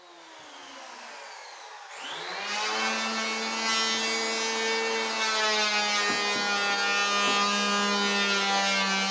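Bosch table saw motor starting up about two seconds in and running at a steady, evenly pitched whine with many overtones.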